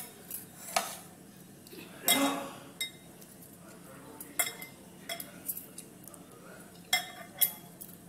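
Glass dish and ceramic plate clinking and knocking as tomatoes are set into the dish by hand: several separate sharp clinks, roughly a second apart.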